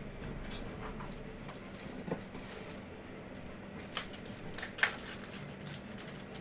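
Soft handling noises: a few light clicks and rustles, the two loudest about four and five seconds in, over a low steady hum.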